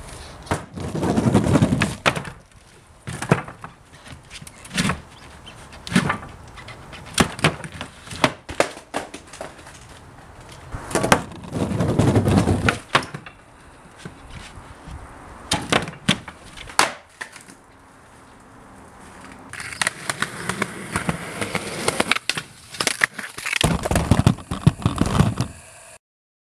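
Skateboard rolling on concrete, broken by many sharp clacks and knocks of the deck and wheels hitting the ground and a wooden box during tricks; the sound cuts off near the end.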